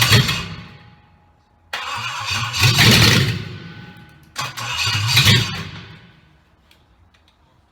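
Triumph Stag V8 on a test stand being cranked over in two short attempts, each swelling louder and then dying away, after an earlier attempt fades out at the start. It does not keep running, which the owner traces to no fuel reaching the carburettors.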